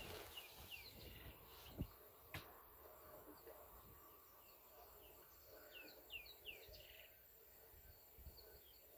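Faint outdoor bush ambience with small birds calling in short falling chirps, in a cluster near the start and another about six seconds in. Two soft knocks come about two seconds in.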